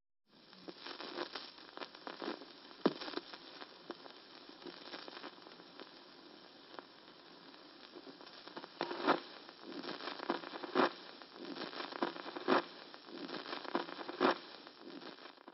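Crackle and hiss with scattered pops, a few of them louder, thin-sounding and cut off abruptly at the end: old-record or old-film style surface noise.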